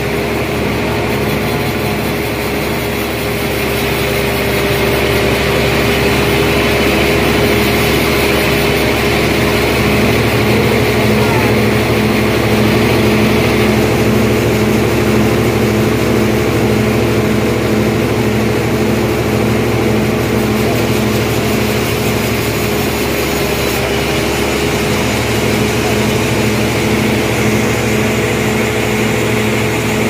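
Band sawmill running with a steady hum and an even high hiss, its blade sawing lengthwise through a large trembesi (rain tree) log. It grows a little louder a few seconds in and then holds.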